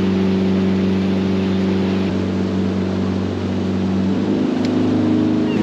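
Boat engine running steadily; its note shifts about two seconds in and steps up in pitch about four seconds in as the engine speeds up.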